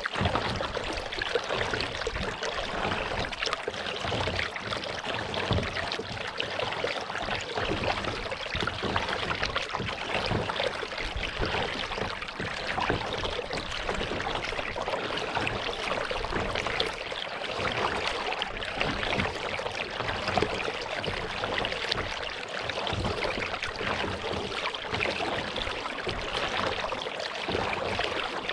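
Water trickling and splashing around a kayak as it is paddled, a steady wash of water sound.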